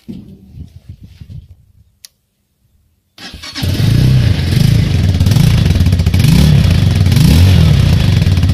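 Minsk X250 motorcycle's single-cylinder four-stroke engine starting about three seconds in and then revved up and down several times, running out through the stock muffler with four holes drilled in it to make the exhaust louder.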